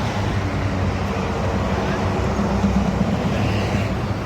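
Medium buses passing on a toll road: a steady low rumble of engine and tyres that swells a little about two and a half seconds in.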